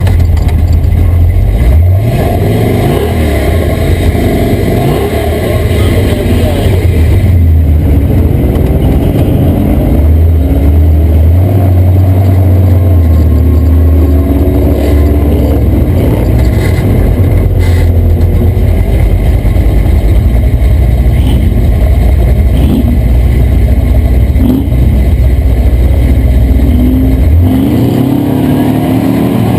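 Toyota Tacoma prerunner race truck's engine running loud and hard, its pitch rising and falling again and again with throttle and gear changes, over a heavy low drone.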